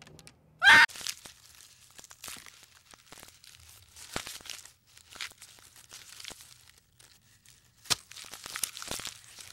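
One short, loud animal call about a second in, then irregular crackling and crunching.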